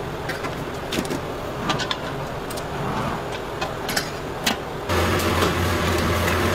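Light metallic clinks and taps of serving utensils and the domed lid on a stainless-steel buffet chafing dish, several separate taps spaced about a second apart over a low background noise. About five seconds in, the sound cuts to a louder steady low hum with a few more taps.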